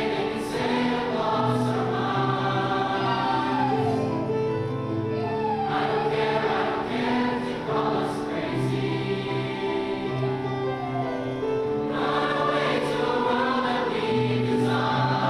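A large mixed high school choir, men's and women's voices together, singing held chords in harmony, moving from chord to chord every second or so.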